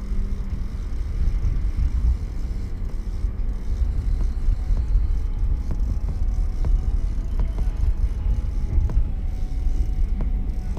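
Wind buffeting the microphone on the open deck of a boat at sea: a heavy, uneven low rumble, with a few faint clicks.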